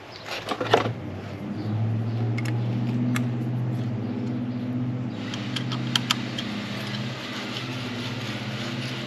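A motor starts up in the first second or so and then runs with a steady low hum, with a few light metallic clicks and clinks over it.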